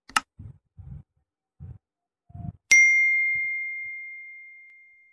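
Subscribe-button animation sound effect: a short click, a few faint low blips, then a single bright bell ding that rings out and fades slowly over about two seconds.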